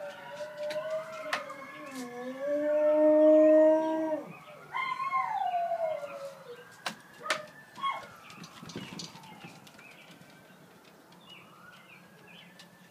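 Wolfdog howling: a long, steady howl about two seconds in, the loudest sound, then a second howl that falls in pitch around five seconds. Distant sirens wail slowly up and down underneath and carry on faintly after the howling stops.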